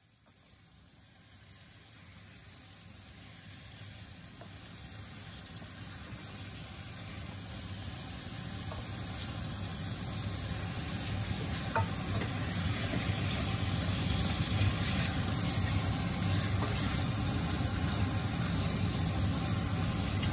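A pan of curry with turnips and greens sizzling on the stove as it is stirred with a wooden spoon. Under it runs a steady low hum. The sound swells gradually from faint to moderate, with a light tap of the spoon about twelve seconds in.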